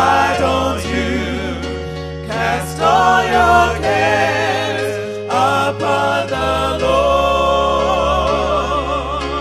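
Gospel song: voices singing long notes with vibrato over a bass line that steps between notes every second or two.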